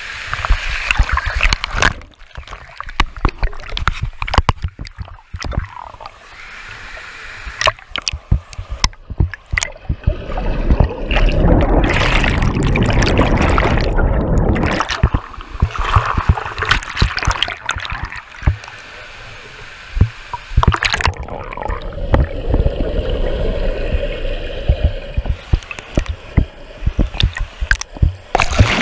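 Swimming-pool water sloshing and gurgling around an action camera as it moves above and below the surface, with many sharp clicks and knocks; a dense stretch of rushing water a little before halfway is the loudest part.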